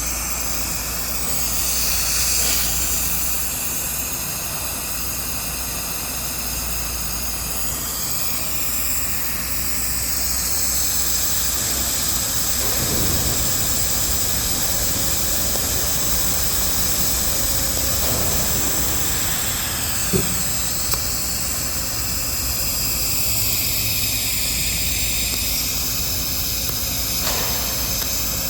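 Electric welding arc hissing steadily on a pipe fitting, with one short click about two-thirds of the way through.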